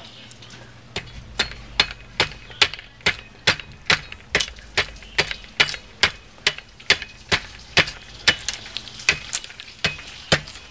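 Machete blade chopping slivers off a wooden stick for kindling: a steady run of sharp knocks, about two and a half a second, starting about a second in.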